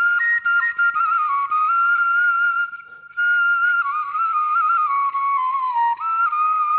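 Unaccompanied flute-like melody opening a rap track: a single high, wavering line stepping between a few notes, with a short break about three seconds in.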